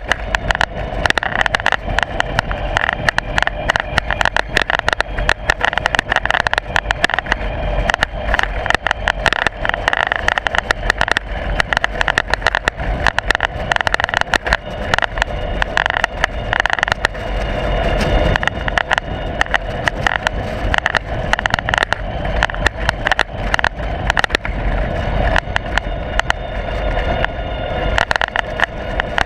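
Continuous loud rattling and knocking from a loosely mounted camera jolting on a moving ride, over steady rumble and road noise.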